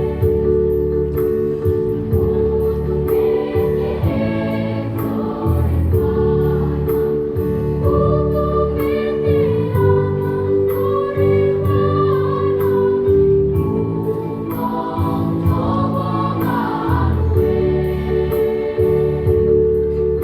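Junior high school choir singing in parts: lower voices hold long steady notes under a moving melody, over a steady beat of sharp ticks.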